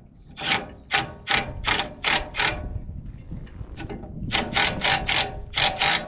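Cordless impact driver tightening a bolt in short trigger bursts, hammering away: about six quick bursts, a pause, then about five more.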